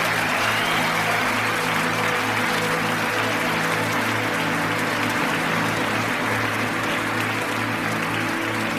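Live concert band music with low chords held steady, heard together with audience applause and crowd noise.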